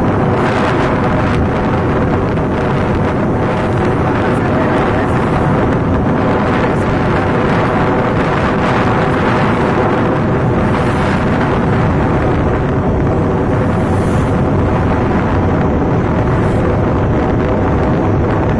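Wind buffeting the microphone of a moving vehicle, over a steady engine drone.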